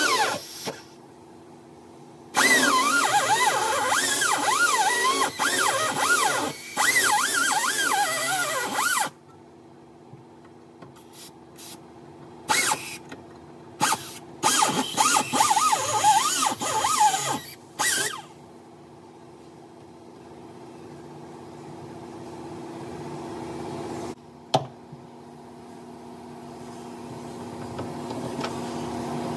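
Air-powered cutoff tool cutting the sheet-steel floor of a pickup's transmission tunnel: one long run with its pitch wavering under load, then several short bursts, then it stops.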